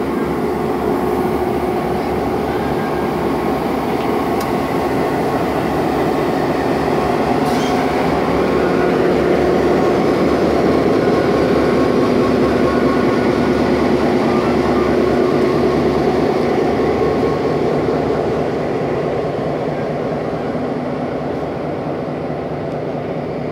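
EMD GP9 diesel-electric locomotive's 16-cylinder two-stroke 567 diesel engine idling steadily. It grows louder toward the middle and eases off slightly near the end.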